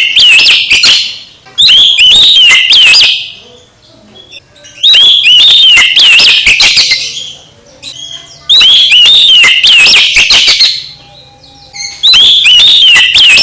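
Oriental magpie-robin (kacer) singing: loud phrases of quick sliding whistles and sharp clicking notes, each about two seconds long, repeated every three to four seconds.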